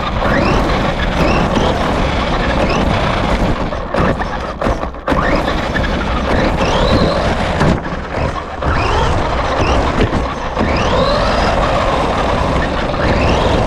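RC car's motor whining up in pitch again and again as it accelerates, under heavy rushing wind and road noise picked up by the camera riding on the car, with a few short drops as the throttle is let off.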